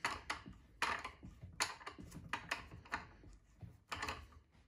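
Uneven run of sharp clicks, about two or three a second, as a T-handle winding key is turned in the Trend T14 router's through-table height adjuster.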